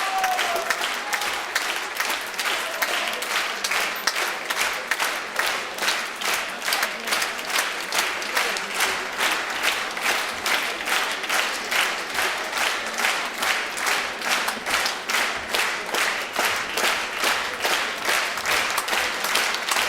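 Audience applauding. About five seconds in, the clapping falls into rhythmic unison at roughly three claps a second.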